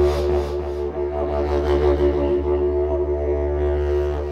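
Didgeridoo playing a deep, unbroken drone, with a stack of overtones above it that swell and shift in a slow, rhythmic way.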